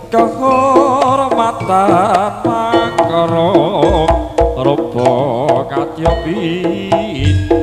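Live Javanese jaranan ensemble music: a loud, continuous, wavering melody line over drum beats, with deep strokes landing a few times.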